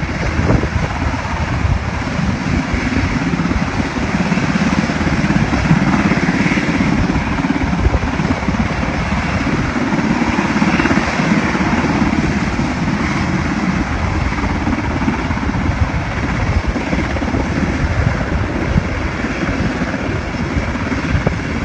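Military helicopter flying close by: a steady, rapid chop of the rotor blades over the turbine engine's noise.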